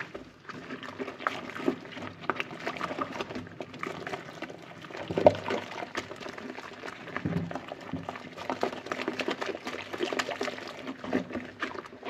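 A soapy sponge squeezed and swished by gloved hands under water in a basin of dish-detergent suds, making irregular wet squelches, sloshes and crackling bubbles, with one sharper splash about five seconds in.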